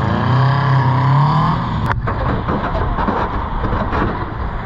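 Honda B18B1 four-cylinder engine running hard at high revs, its pitch climbing slightly over the first two seconds. A sharp click comes about two seconds in, after which the engine sound turns rougher and noisier.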